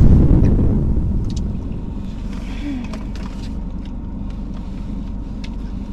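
The tail of a loud boom fades out over the first second or so, leaving the steady low rumble of a car's cabin with the engine running.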